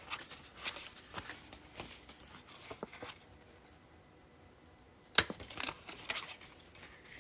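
Handheld 1/8-inch hole punch pressed through patterned paper, with light paper rustling and small clicks as the bag is handled, and one sharp snap about five seconds in.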